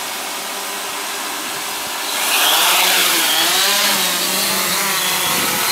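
F550 hexacopter's six electric motors and propellers running, then spooling up about two seconds in as it lifts off, the whine wavering up and down in pitch with the throttle.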